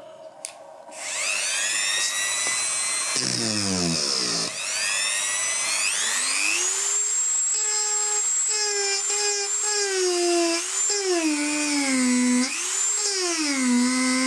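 Dremel 3000 rotary tool motor spinning up about a second in, its whine rising as the speed is turned up, then grinding into wood with a pink grinding stone, the pitch dipping and recovering each time the stone bites. The motor holds its speed under load after a repair of its cut coil winding.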